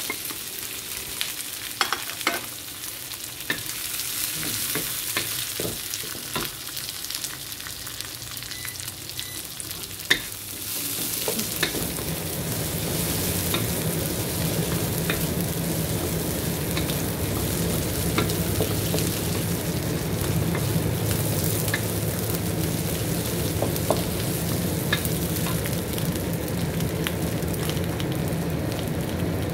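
Garlic, dried chillies, curry leaves and shallots sizzling in hot oil in a wok, with the clicks and scrapes of a wooden spatula stirring them against the pan. About eleven seconds in the sizzle grows louder and fuller.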